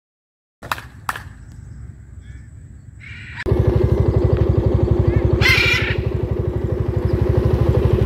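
Motorcycle engine running at a steady idle, starting suddenly about three and a half seconds in. A brief harsh squawk rises over it about halfway through. Before the engine comes in there are two clicks over a low rumble.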